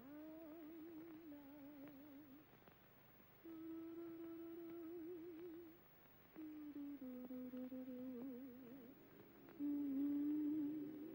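A woman humming a slow melody without words, in four long held phrases with a wide vibrato and short pauses between them. The last phrase is the loudest.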